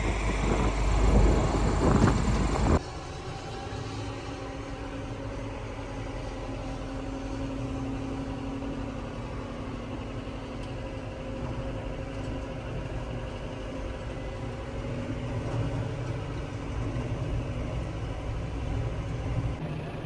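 John Deere 6120M tractor's diesel engine running steadily under way, heard from inside the cab as a low drone with a faint steady hum. It opens with about three seconds of loud wind rumble on the microphone outdoors, cut off suddenly.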